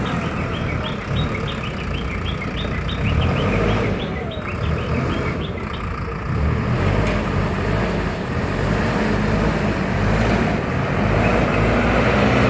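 Backhoe loader's diesel engine running hard as the machine manoeuvres, a steady heavy drone that swells and eases a little.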